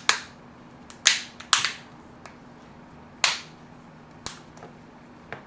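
Clips of a Nexus 5 smartphone's back cover snapping into place as it is pressed on by hand: a series of sharp clicks, the loudest about a second apart, with a softer one near the end.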